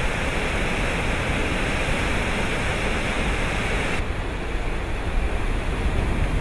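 Campaspe River in flood rushing over Turpins Falls and through rapids: a steady, loud roar of water. About four seconds in it changes suddenly to a duller rush with less hiss.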